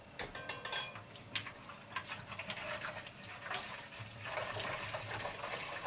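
Carpet and furniture cleaner poured from a plastic bottle into a garden pressure sprayer's tank: liquid running steadily into the container, with a few light clicks in the first second.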